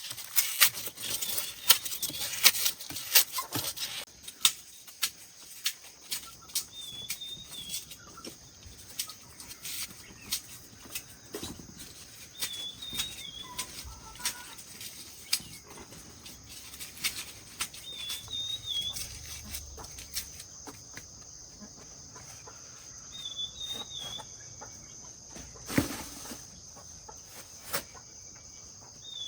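Scattered sharp taps and knocks, thick in the first few seconds and then sparse, with one louder knock near the end, while a bird repeats a short warbling chirp about every five seconds. A faint steady high tone comes in past the middle.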